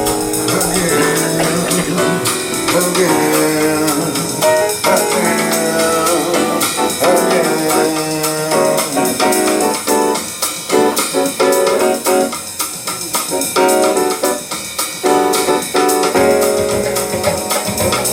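Recorded music playing through a high-end hi-fi system's loudspeakers in a demonstration room.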